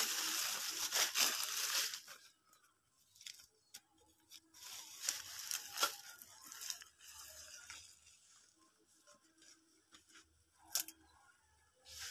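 Dry leaf litter rustling and crackling as handfuls of it are spread by hand, in irregular bursts, the loudest at the start and another about five seconds in, with one sharp snap near the end.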